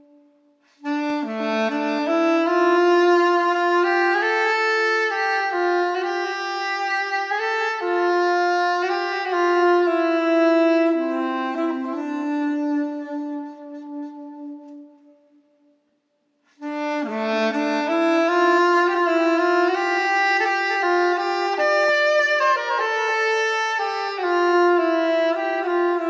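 Soprano saxophone playing a slow solo melody in two phrases, with a short pause between them about two thirds of the way through.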